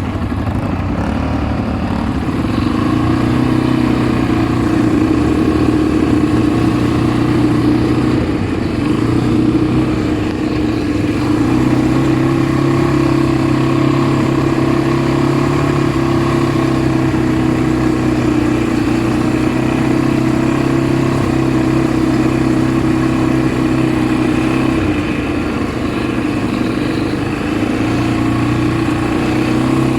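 ATV engine running steadily while riding, its pitch stepping up and down a few times with the throttle.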